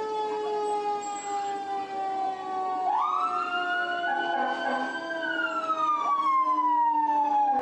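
Two or more fire truck sirens sounding together. One winds slowly down in pitch throughout, while another rises sharply about three seconds in, holds high, then winds down again near the end.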